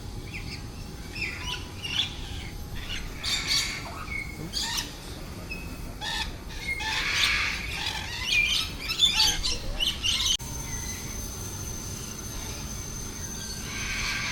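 Small birds chirping and squawking with many short, sharp calls, busiest around seven to nine seconds in. The sound changes abruptly about ten seconds in, and a steady high-pitched tone then runs under quieter chirps.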